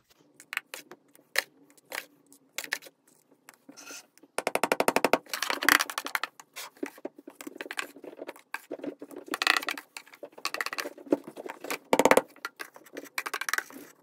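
Carpet freshener powder being scooped and spooned from a plastic tub into a plastic shaker jar: scrapes, and taps of the jar and a metal spoon against the plastic. There are quick rattling runs, one lasting under a second about four and a half seconds in and a shorter one near twelve seconds.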